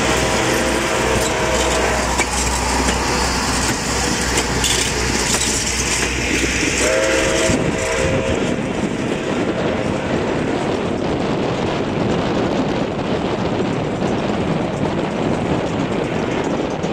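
Stainless-steel passenger cars rolling past on jointed track with a steady clatter of wheels on rails. The steam locomotive's chime whistle sounds up ahead in two short blasts, one at the start and one about seven seconds in.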